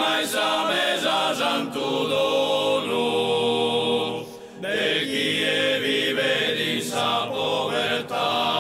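Background music: a choir singing slow, sustained a cappella chords, with a short pause about four and a half seconds in.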